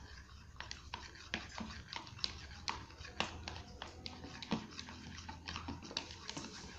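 Spatula stirring a wet slime mixture of glue, water and body lotion in a container: irregular sticky clicks and squelches several times a second, over a steady low hum.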